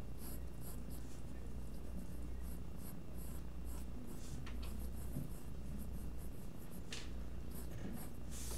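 Mechanical pencil scratching on paper in short, irregular sketching strokes, with a longer stroke about seven seconds in, over a steady low hum.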